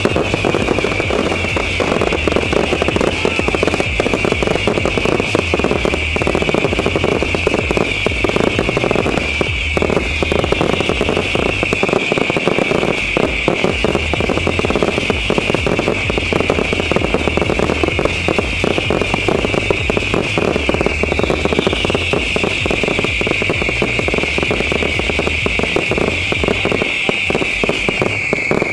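Fireworks finale barrage: many overlapping whistles, each falling in pitch, over continuous dense crackling and low thuds from launches.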